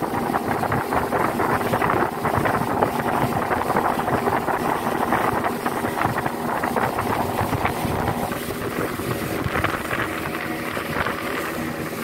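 Speedboat's 75-horsepower outboard motor running steadily at cruising speed, with wind noise on the microphone from the boat's speed.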